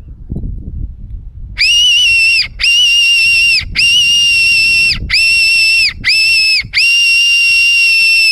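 Silva fox call, a mouth-blown fox whistle, blown in six steady, high-pitched squeals with short breaks between them, a call made to imitate a distressed rabbit and draw in foxes or feral cats. Low rustling comes before the first blast.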